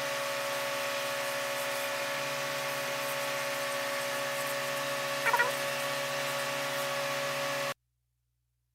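Small electric motor of a homemade wood lathe running at a steady speed, with a brief squeak about five seconds in. The sound cuts off abruptly near the end.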